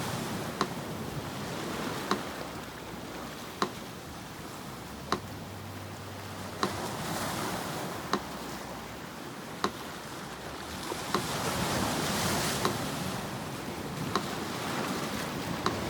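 Sea surf washing in slow swells, building to a peak about three-quarters of the way through, with a metronome ticking evenly about once every second and a half.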